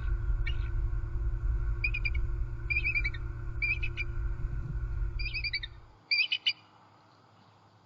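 Bald eagles calling: a series of short, high, chattering calls, each a quick run of notes, repeated about once a second. A steady low rumble runs under them and cuts off about six seconds in.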